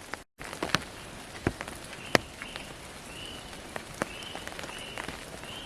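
Light rain and water drips falling in wet forest: a steady patter with scattered sharp ticks. From about two seconds in, a short high note repeats roughly every 0.7 s.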